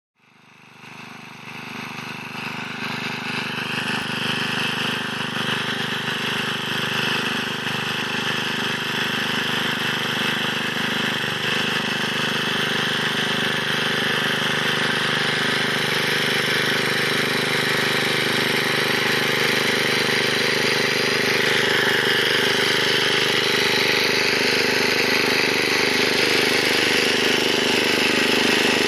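Engine of a Luch walk-behind tractor running steadily while its rotary tiller works the soil; the sound fades in over the first few seconds, then holds at an even pitch.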